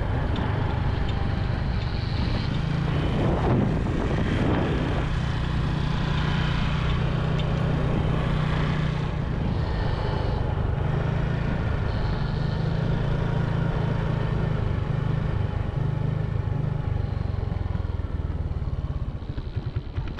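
Motor vehicle engine running steadily on the move, a low drone that shifts slightly in pitch and cuts off at the end.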